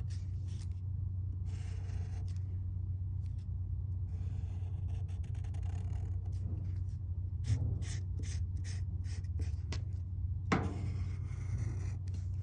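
Sharpie fine-point permanent marker drawing on construction paper in scratchy strokes that come and go, over a steady low hum.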